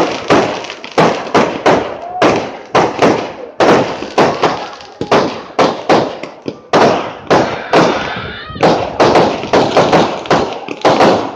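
Aerial firework shells bursting in quick succession, about two sharp bangs a second, each followed by a short fading tail.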